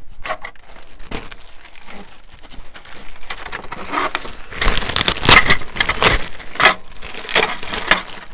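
A thin clear plastic parts bag crinkling and crackling as it is handled and torn open. The crackling is loudest about five to six seconds in, where the bag rips.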